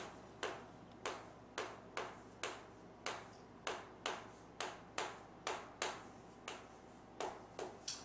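Chalk writing on a chalkboard, each stroke striking the board with a sharp click, about two or three clicks a second.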